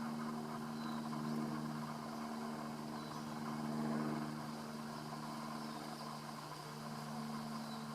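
Steady mechanical hum at an unchanging pitch, like an engine or motor running, with a few faint, short high chirps over it.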